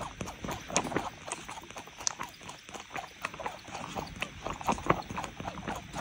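Tabby cat suckling from a small baby bottle: a quick, irregular run of wet sucking clicks and smacks, several a second.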